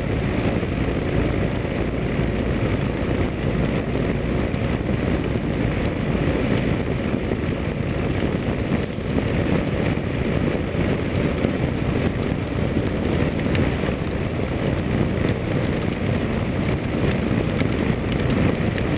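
Kawasaki KLR motorcycle's single-cylinder engine running steadily at cruising speed, mixed with wind rushing over the microphone and the noise of tyres on a wet road.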